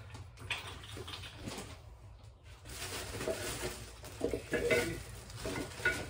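Loose steel gym-machine parts and hardware clinking and clattering irregularly as they are handled in a cardboard parts box, with plastic wrapping rustling.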